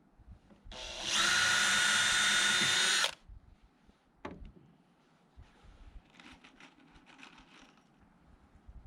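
Handheld power drill running at a steady speed for about two seconds, then stopping. A sharp click follows, then faint light tapping.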